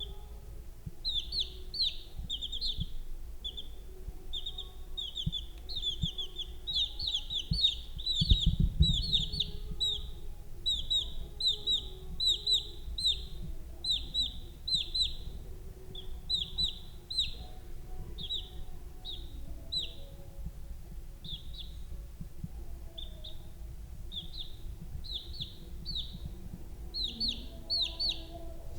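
Baby chicks peeping: a steady stream of short, high, downward-sliding cheeps, several a second, from a group of chicks. A low thump sounds about a third of the way in.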